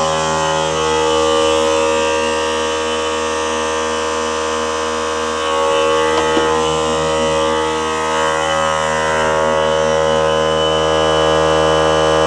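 Small portable electric air compressor running steadily, a continuous hum with a fixed pitch.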